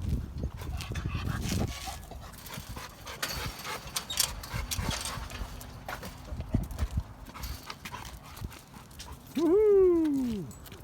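A dog gives one drawn-out call near the end, rising and then falling in pitch, the loudest sound here. Before it there are scattered knocks and rustles.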